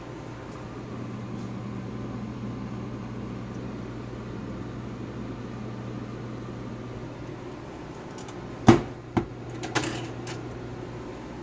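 Dr.coffee F11 coffee machine giving off a steady low hum, with four short sharp knocks about nine seconds in.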